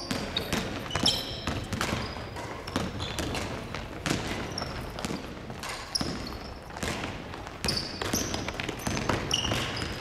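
Basketball dribbling and bouncing on a wooden gym floor, mixed with the thuds of running footsteps and repeated short squeaks of sneakers on the court.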